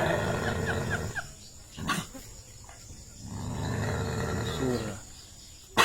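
Dog growling in two stretches: a short one at the start and a longer low growl from about three seconds in that drops in pitch as it ends. A short sharp click comes about two seconds in.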